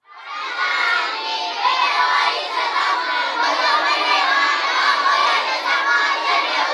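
A classroom of children chanting aloud together, a dense chorus of young voices.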